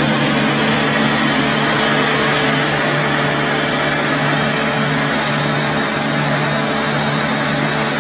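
A machine's motor running steadily, a constant hum under an even hiss that does not change.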